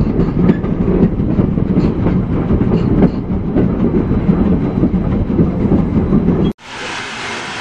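Steam-hauled passenger train running on the line, heard from right beside the locomotive: a heavy, steady rumble and rattle of wheels and cars with scattered clicks over the rail joints. About six and a half seconds in it cuts off suddenly and a steady hiss takes over.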